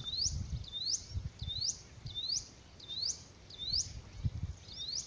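A bird calling over and over, a short high whistled note that rises quickly, about eight times, roughly one every two-thirds of a second. Low rumble on the microphone underneath.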